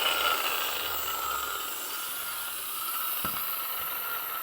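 Angle grinder motor running with a steady high whine and hiss, slowly getting quieter, with a faint knock about three seconds in.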